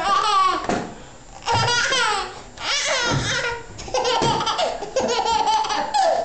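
A baby laughing hard in about five bursts of high-pitched laughter, each falling in pitch, with short breaks between them.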